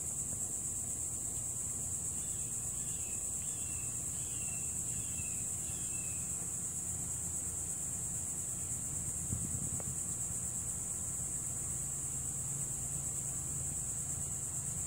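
Background insect chorus, crickets or similar, holding a steady high-pitched trill, with a few faint short chirps in the first few seconds.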